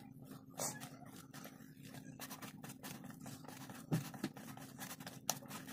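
Thick kefir batter being stirred by hand in a mixing bowl: soft, irregular scraping and squelching strokes, with two sharper knocks of the utensil against the bowl about four and five seconds in.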